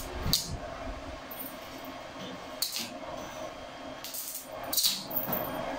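E7018 stick-welding electrode being tapped on steel plate at too low a current: four brief crackling hisses of an arc that flashes and dies at once, as the rod keeps sticking instead of holding an arc. A steady hum runs underneath.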